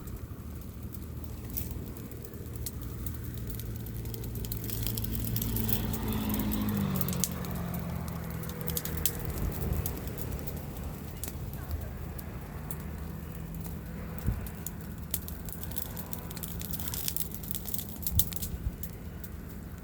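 A motor running steadily, its pitch dropping slightly about seven seconds in, with scattered light clicks and crackles.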